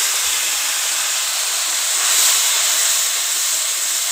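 Ground tomato puree sizzling steadily in hot oil with browned onions in a karahi wok: the wet puree has just hit the hot oil and is boiling off as steam.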